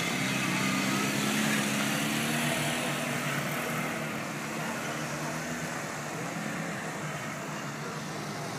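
Several motorcycle engines running at low revs, ridden slowly, their pitch drifting up and down a little with the throttle; a little louder in the first half.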